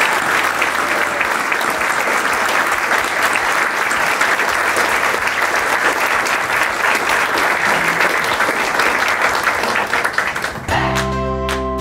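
A banquet room full of people applauding steadily. About a second before the end the clapping stops and music with sharply plucked notes starts.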